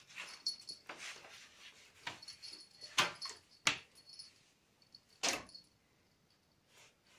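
A cat playing on a hard floor: scuffling and rustling, with sharp knocks about three seconds in, again a little later, and once more about five seconds in.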